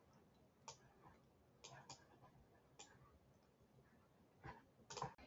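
Near silence with about half a dozen faint, sharp clicks at irregular intervals.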